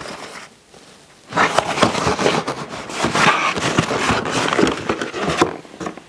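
Brown paper mailing bag rustling and crinkling as a parcel is opened and a boxed item is slid out. The rustling starts about a second in and dies down near the end.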